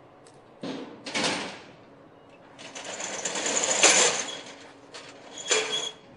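Metal roller shutter on an enclosed car-carrier rail wagon being pulled down: a couple of clanks, then a long rattle of the slats that builds to a loud bang as it comes down, and a last sharp clank near the end.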